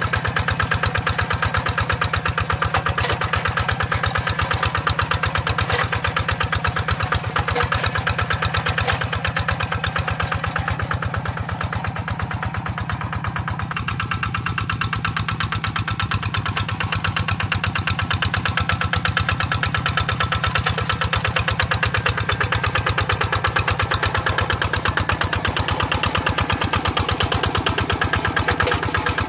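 Two-wheel hand tractor's single-cylinder diesel engine running steadily with a rapid, even beat as it pulls a plow through the soil under load. It grows a little fainter in the middle as the tractor moves away.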